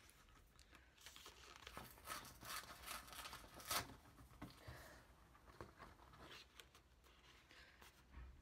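Faint rustling and crinkling of a stiff paper sheet being opened and handled, busiest in the first half, with the sharpest rustle a little before the middle.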